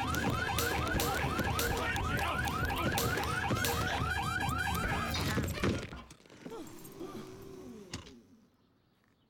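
Car alarm whooping in rapid rising sweeps, several a second, over knocks and a low rumble. It cuts off suddenly a little past halfway, leaving only faint scattered sounds that fade to near silence.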